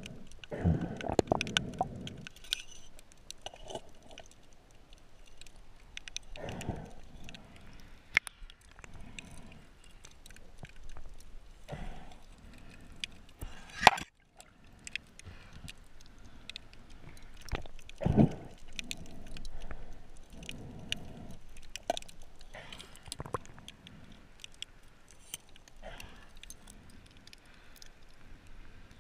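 Underwater sound heard through a camera housing: scattered clicks and knocks, with a few muffled swishes of water, as a diver handles a spear shaft and a speared rockfish close to the camera. One sharp click about halfway.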